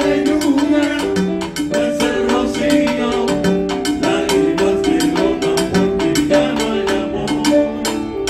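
Live Latin salsa-style band music: piano notes in a repeating pattern over a steady beat of hand drums, played instrumentally.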